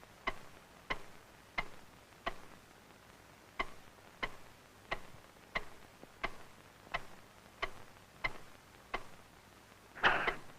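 Clock ticking steadily, about one sharp tick every two-thirds of a second, with one beat skipped about three seconds in. A louder sound cuts in just before the end.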